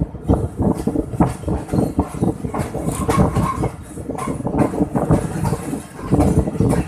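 Moving passenger train coach heard from its open doorway: the wheels rumble and clatter over the track, with many irregular knocks.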